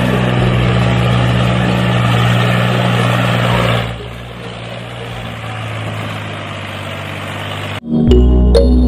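A motor or engine running with a steady hum, dropping to a lower level about four seconds in; music starts near the end.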